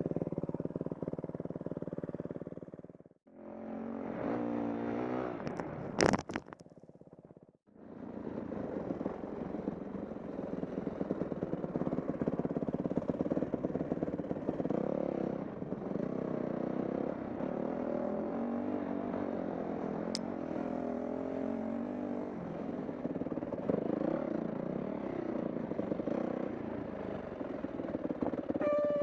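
Dirt bike engine running while riding a trail, its revs rising and falling. The engine sound breaks off between about three and eight seconds in, with a single sharp knock about six seconds in.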